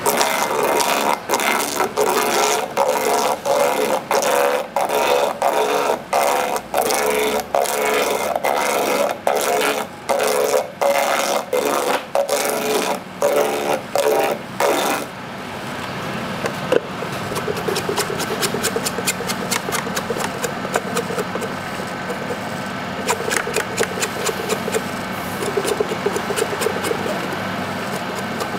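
A coconut-processing machine working a coconut: a rough scraping stroke repeats a little over once a second, then about halfway through it gives way to the machine running steadily with faint quick ticks.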